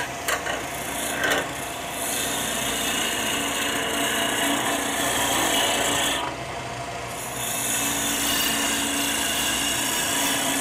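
A turning gouge taking a shear cut on a maple blank spinning at about 1500 to 1600 rpm on a Robust wood lathe, making a steady cutting noise. The cut starts about two seconds in, stops for about a second near the middle, and then resumes.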